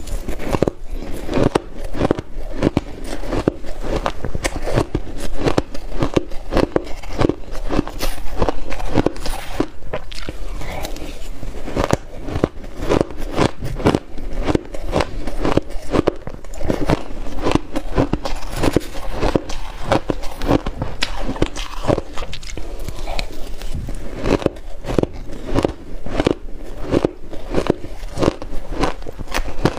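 Close-miked chewing of dry blue shaved ice, rapid crisp crunches following one another without pause.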